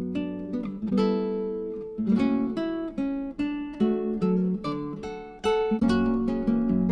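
Background music: acoustic guitar picking and strumming a melody.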